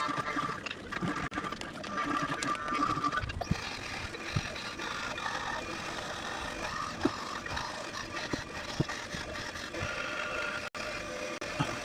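Handheld power tool running steadily on wood, its tone shifting about three and a half seconds in, with a few short knocks.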